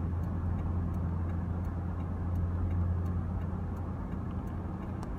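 Car cabin noise while driving: a steady low hum of engine and tyres on the road, heard from inside the car.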